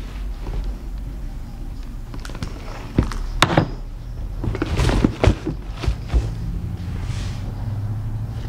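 Cardboard sneaker box and sneakers handled on a glass counter: scattered knocks and thunks, with a sharp click about three and a half seconds in and a brief rustle around five seconds and again near seven.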